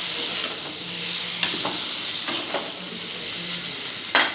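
Chicken pieces frying in a thick chilli sauce in a metal kadai, sizzling steadily while a spatula stirs and scrapes them around the pan. There is a louder knock of the spatula against the pan near the end.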